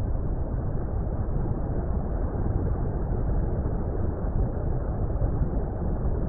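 Steady, low water rumble noise: an even, deep wash of sound with nothing standing out from it.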